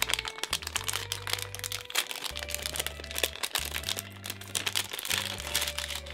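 Metallized antistatic plastic bags crinkling as they are handled, in dense irregular rustles, over background music with a steady bass line.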